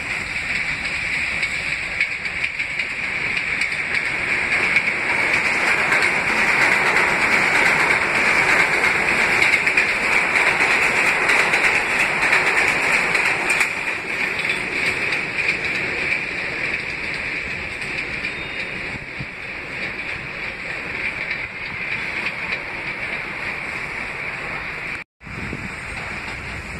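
R160A subway train running along elevated track into the station, its wheel and rail noise building to a peak and then slowly fading as it goes by. The sound cuts out for an instant near the end.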